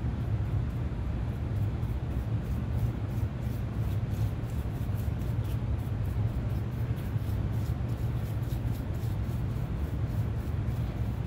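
A steady low hum, with faint scratching of a bristle paintbrush working stain into a wooden guitar body.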